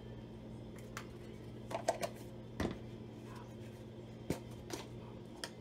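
Scattered light clicks and taps of kitchen utensils being handled, about seven in all, two close together about two seconds in, over a steady low hum.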